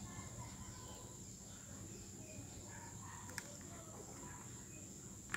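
Quiet background with a steady high-pitched insect drone, faint scattered bird chirps, and two short clicks, one past halfway and one near the end.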